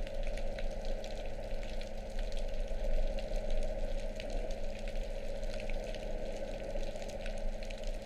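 Underwater sound: a steady low hum under a crackling, sizzling hiss of water, with scattered faint clicks.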